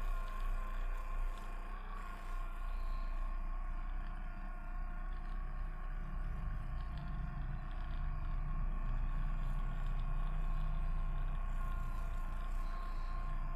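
A steady machine hum with a high, even whine and a low drone, swelling slightly in the middle.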